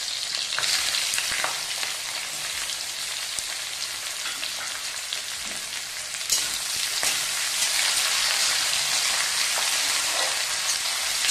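Sliced onions sizzling in hot mustard oil in an aluminium kadhai, with a metal spatula scraping and tapping the pan as they are stirred; one sharper knock about six seconds in.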